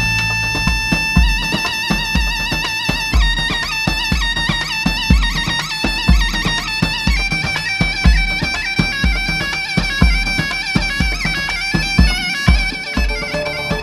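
Closing music: a wind-instrument melody over held steady tones, with a regular drum beat underneath.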